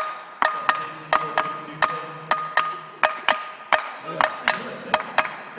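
A cowbell played in a steady, repeating rhythm, about three strikes a second in short pairs, each strike ringing briefly.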